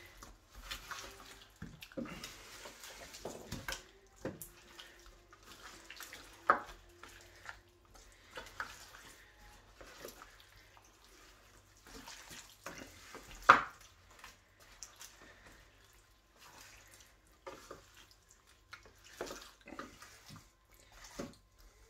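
Hands squishing and kneading a wet yogurt-and-oil marinade into lamb shanks and vegetables in a metal roasting tray: soft, irregular wet squelches with occasional sharper knocks, the loudest about thirteen seconds in.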